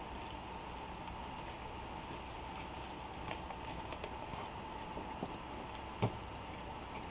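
Quiet room tone with a steady hum, scattered faint ticks and rustles of hands handling things at a desk, and one light knock about six seconds in.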